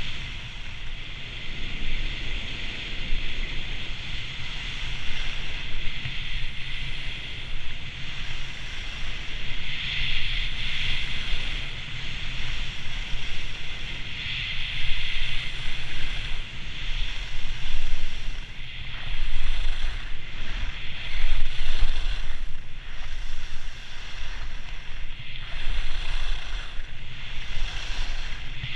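Skis running fast over hard-packed groomed snow: a steady hiss and scrape from the edges that swells now and then through the turns, with wind buffeting the action camera's microphone.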